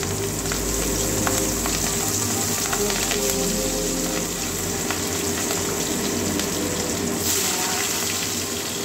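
Green chillies sizzling steadily in hot oil in a kadai. Sliced onions go into the oil partway through and keep frying.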